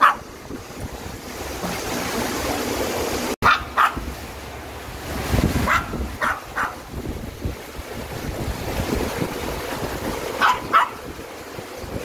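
A Maltese dog gives several short barks, some in pairs, over the steady rush of a shallow mountain stream.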